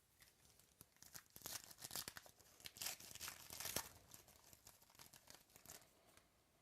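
A trading-card pack wrapper being torn open and crinkled, a dry crackle loudest about three to four seconds in.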